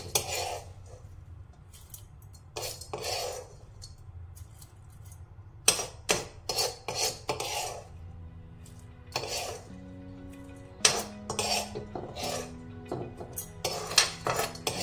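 A metal spoon clinking and scraping against steel utensils in groups of quick strikes as food is spooned into a mixer jar. Soft background music with held low notes comes in about halfway through.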